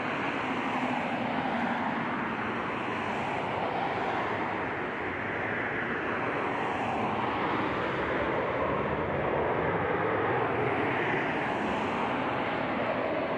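Jet airliner engine noise: a steady, continuous rush with a slowly swirling, shifting tone as the aircraft passes.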